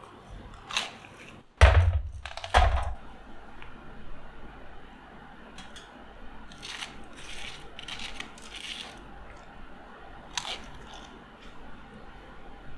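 Crisp breaded chicken pané cutlets being torn and handled, the crust crunching and crackling in short bursts. The two loudest crunches come about two seconds in, followed by lighter crackling a few seconds later and once more near the end.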